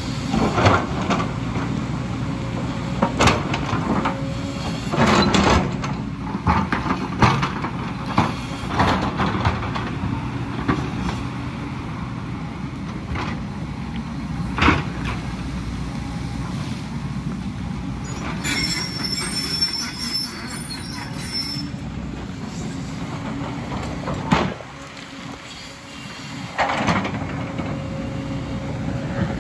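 JCB tracked excavator's diesel engine running under load while the bucket scrapes and knocks on rock and loose stones, many times. A high metallic squeal sounds for about three seconds past the middle.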